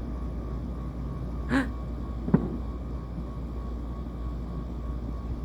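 Fireworks going off at a distance: one sharp bang a little over two seconds in, with a brief hiss just before it, over a steady low rumble.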